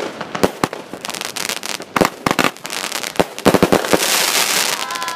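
Consumer fireworks going off close by: a quick irregular series of sharp bangs, with dense crackling about a second in and again, louder, near the end.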